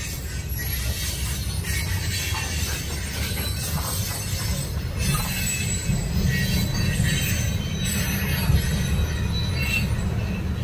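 Freight train's coal hopper cars rolling past, a steady low rumble of wheels on rail with thin high-pitched wheel squeal coming and going over it.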